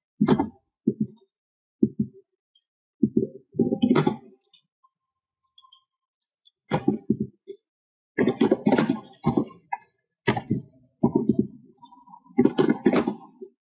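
Keys typed on a computer keyboard and mouse clicks, picked up as irregular short knocks in small clusters with pauses between them.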